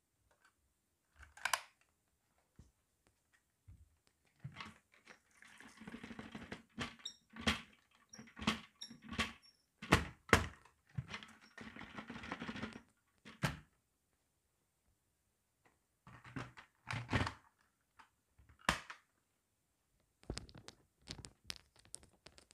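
Dry red lentils being poured and scattered onto a rug: bursts of grainy pattering and sharp clicks with a few louder taps, broken by short pauses.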